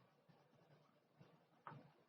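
Near silence: faint room tone, with one brief faint scratch or tap a little before the end.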